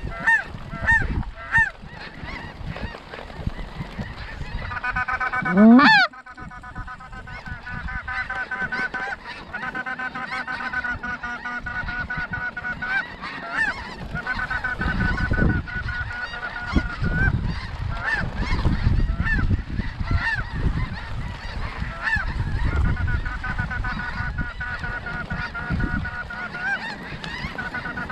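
Snow geese calling, many overlapping high-pitched honks and yelps blending into a steady chorus. A loud rising sweep about five seconds in, the loudest sound here, cuts off suddenly.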